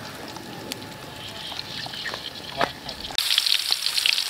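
Hot oil in a steel wok over a wood fire, hissing quietly with scattered pops and crackles. About three seconds in it changes abruptly to loud, dense sizzling as a batch of snails goes into the hot oil.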